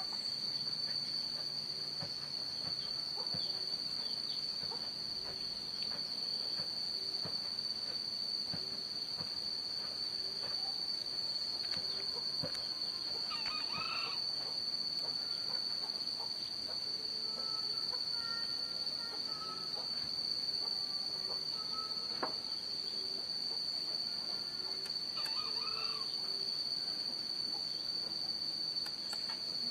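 Steady high-pitched insect trill at dawn, the loudest sound, with a few faint bird calls breaking in, the clearest about a third of the way in and again near the end.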